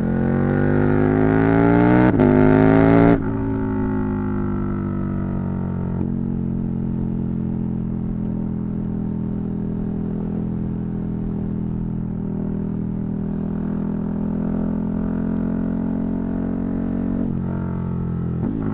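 KTM 1290 Super Duke R's V-twin engine under hard acceleration. The revs climb with a quick break about two seconds in, then fall sharply as the throttle shuts about a second later. After that the engine holds a steady cruising note, with a shift in pitch near the end.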